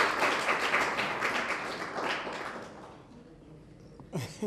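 An audience clapping, which dies away about three seconds in; near the end comes a brief vocal sound.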